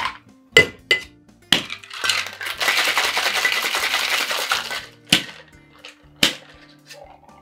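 Ice and metal clinking in a copper Boston shaker as it is closed, then ice rattling hard inside the sealed shaker for about three seconds as the cocktail is shaken. Two sharp knocks on the tin follow near the end.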